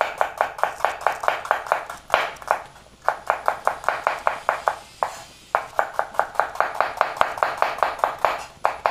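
Chef's knife slicing a red onion on a wooden cutting board: quick, even knocks of the blade on the board, about six a second, broken twice by short pauses.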